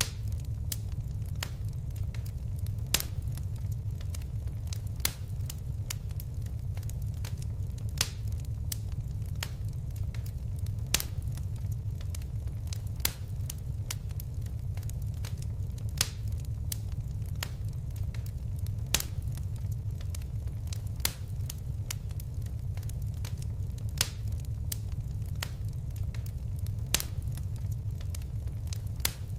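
Fire crackling in a fireplace: a steady low rumble of flames with frequent small crackles and a sharper pop every two to three seconds.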